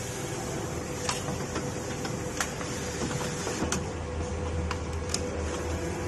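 Richpeace automatic collar and bag-opening sewing machine running: a steady mechanical whirr with sharp clicks about once a second, and a deeper hum that comes in about three and a half seconds in.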